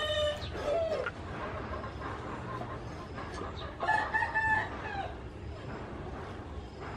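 A rooster crowing twice: one crow ending about a second in, another about four seconds in.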